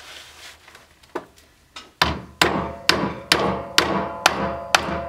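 A hammer striking metal: two light taps, then about two seconds in a steady run of seven sharp blows, about two a second, each one ringing briefly.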